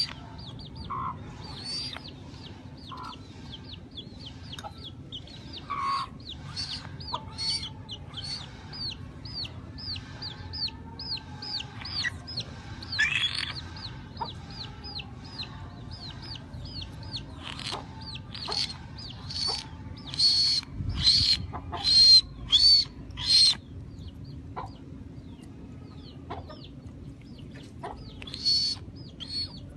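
Chicks peeping over and over, about two high, falling peeps a second, with a run of louder, sharper calls about three-quarters of the way in.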